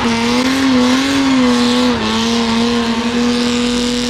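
Race car engine held at high, nearly steady revs while its tyres spin in a smoking burnout, with tyre squeal and noise underneath. The engine note wavers slightly over the first two seconds, then holds flat.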